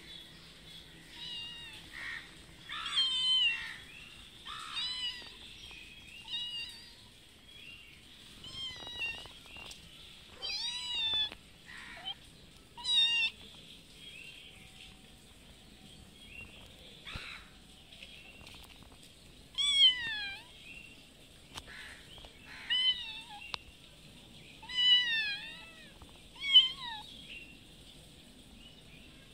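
Cats meowing again and again, about fifteen short, high-pitched calls that rise and fall in pitch. The cats are begging for food.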